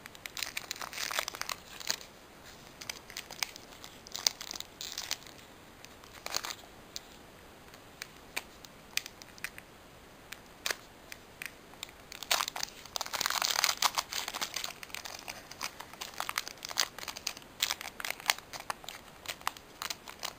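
Foil booster-pack wrapper crinkling and crackling in the hands as it is worked at and pulled open, in scattered short crackles with a longer, louder stretch of crackling a little past halfway.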